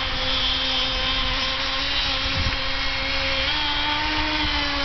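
O.S. .21 nitro two-stroke outboard on an RC boat running at speed with a steady high-pitched whine, its pitch stepping up slightly about three and a half seconds in.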